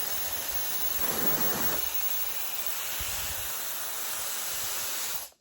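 Brushless hair dryer blowing on its low speed setting, a steady rush of air that cuts off abruptly near the end.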